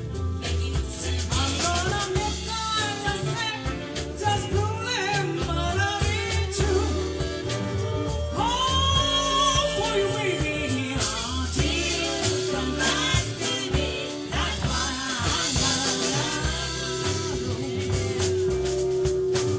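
Live soul band playing: a lead vocal sung over drums, electric bass, guitar and keyboards.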